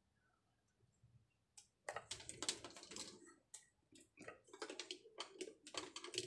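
Hands handling a compression driver's housing and multimeter probe leads: a quick, irregular run of small clicks, taps and scrapes starting about two seconds in.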